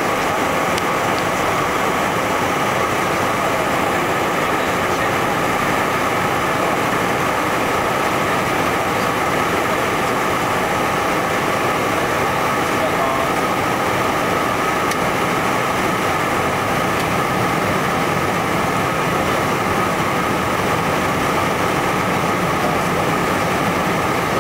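Steady cabin noise of a Learjet 55 on approach, heard from inside the cabin: the even drone of its two rear-mounted Garrett TFE731 turbofans mixed with airflow rush over the fuselage, with no change in pitch.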